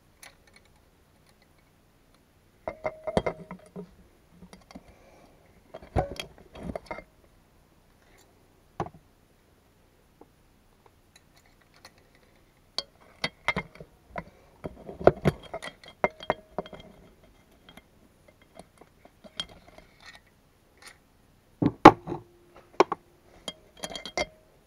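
Metal clinks and clicks as vice grips clamped on a spark plug socket are pressed onto a valve spring retainer on a Subaru EJ205 cylinder head, compressing the spring to free the keepers. The clinks come in scattered clusters, the loudest near the end.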